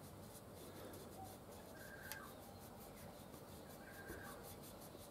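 Near silence with faint rubbing and handling as fingers press a rope rear main oil seal into its groove. A faint short bird call repeats about every two seconds.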